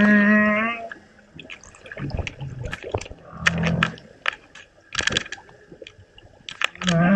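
Humpback whale song recorded underwater: a long pitched call at the start, a lower, rougher call about halfway, and a similar pitched call starting again near the end. Scattered sharp clicks and crackles of water noise run between the calls.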